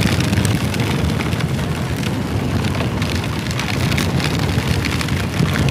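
Heavy downpour hitting a moving motorcycle and its camera: many small ticks of raindrops over a steady low rush of riding wind.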